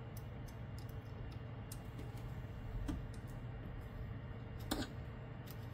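Light, irregular clicks and ticks of small parts being handled on a 3D printer's toolhead, the strongest a little under five seconds in, over a steady low hum.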